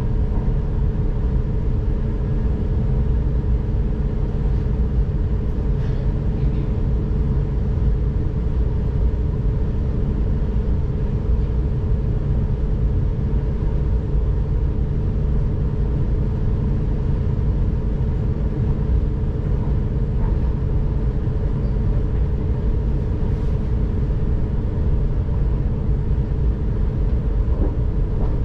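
S-Bahn commuter train heard from inside the passenger car while running at speed: a steady low rumble of the wheels on the rails, with an even hum over it.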